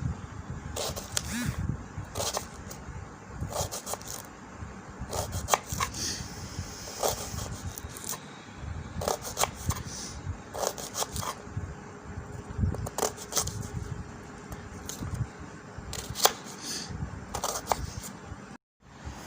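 Knife cutting onions into small pieces, a run of irregular sharp cutting strokes and scrapes of the blade.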